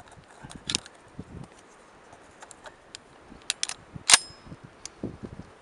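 Shotgun being loaded by hand: light metallic clicks as shells are pushed into the magazine, then about four seconds in the bolt snaps shut with one loud metallic clack, chambering a round.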